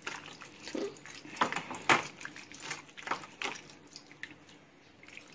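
Water trickling from a plastic bottle onto soaked tamarind pulp in a steel strainer, with wet squishing as the pulp is pressed through by hand and a few irregular sharp clicks and taps against the steel.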